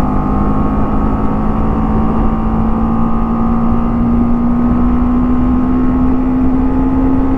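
BMW G 310 GS single-cylinder engine pulling hard at high revs while the motorcycle accelerates, its note rising slowly and steadily.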